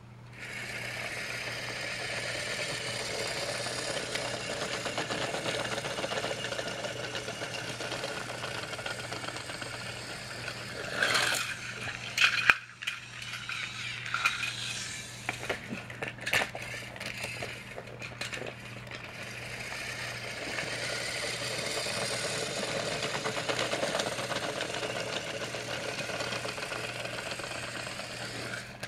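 Battery-powered Trackmaster toy train motors whirring and plastic wheels rattling along plastic track, steady for the first ten seconds or so and again later. In the middle comes a stretch of sharp clicks and clatter.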